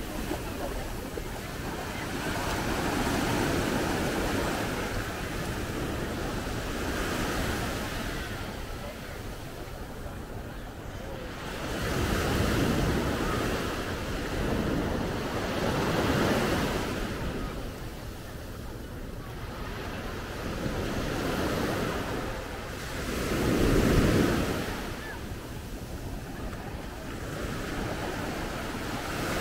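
Small shore-break waves breaking and washing up a sandy beach, the surf swelling and fading every few seconds, with wind buffeting the microphone.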